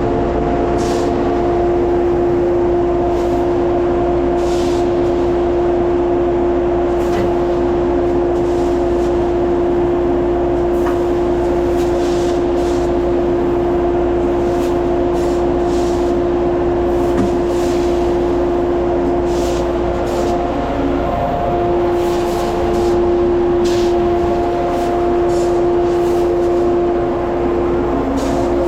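Heavy farm machine running steadily, with a constant high hum over a low rumble and faint clicks and rattles now and then.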